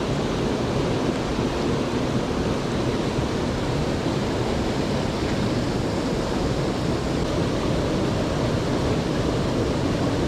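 Steady rush of flowing creek water, an even noise without breaks.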